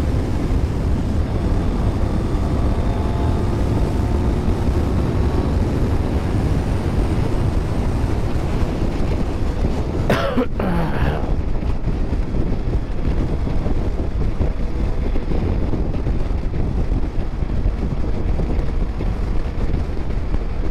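Wind rushing over the rider's microphone with a motorcycle running at highway speed underneath, a steady rush. About ten seconds in, a brief sharp sound falls quickly in pitch.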